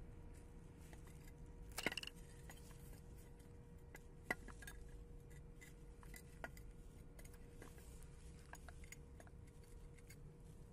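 Near silence with a few faint handling clicks and taps: a small cluster about two seconds in, the sharpest single click about four seconds in, and a faint steady hum underneath.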